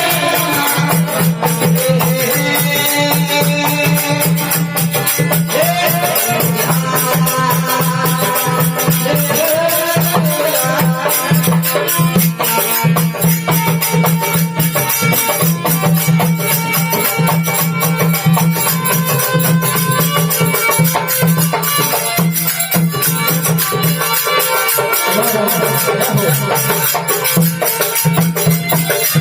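Instrumental interlude of a Rajasthani folk devotional bhajan: a melody that bends in pitch over a steady low drone, with rapid rattling hand percussion.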